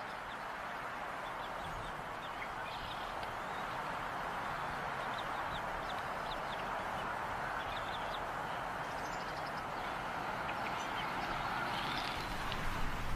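Steady rushing noise with faint, short, high chirps scattered through it: the begging peeps of young bald eagle eaglets during a feeding at the nest.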